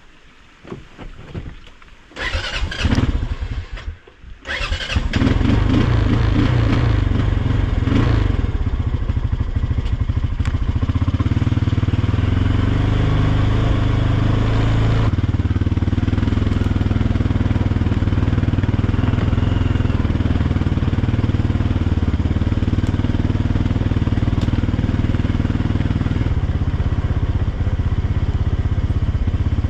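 ATV engine being started: a short burst of cranking about two and a half seconds in, then it catches at about four and a half seconds and runs steadily as the quad is reversed and ridden along the trail.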